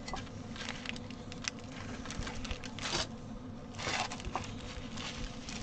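Stiff printed cross-stitch fabric rustling and crinkling as it is handled and shifted, with many small clicks and two louder rustles about three and four seconds in.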